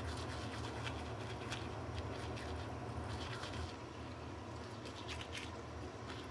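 Manual toothbrush scrubbing teeth with toothpaste: faint, irregular wet scratching strokes over a steady low hum.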